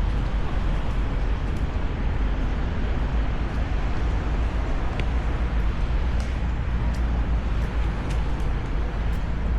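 Steady outdoor background noise: an even hiss over a deep, continuous low rumble, with a few faint ticks.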